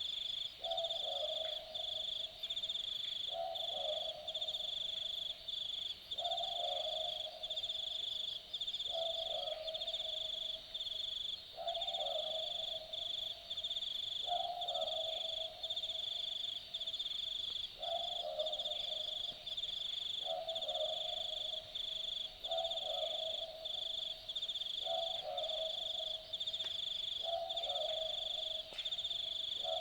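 Australian boobook owl (Ninox boobook) giving its typical two-note 'boo-book' call, repeated steadily about every two and a half seconds. Behind it runs a continuous high, pulsing trill of night insects.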